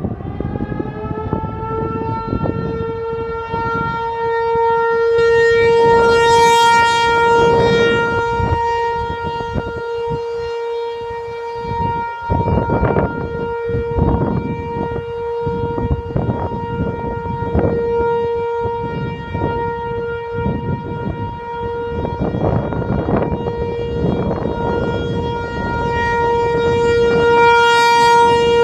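ASC T-128 outdoor warning siren winding up and then holding one steady tone, the alert signal. It swells louder and brighter about a quarter of the way in and again near the end as its rotating head sweeps past.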